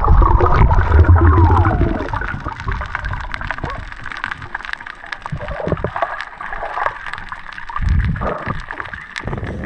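Water sloshing and splashing around a small boat, with scattered short clicks and knocks.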